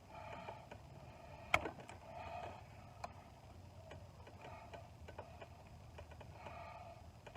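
Quiet handling noise at close range: small clicks and soft rustles, with one sharp click about one and a half seconds in.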